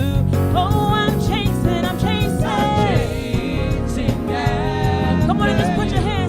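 Gospel worship music: a solo voice singing a melody with vibrato and sliding notes over a band with a steady beat.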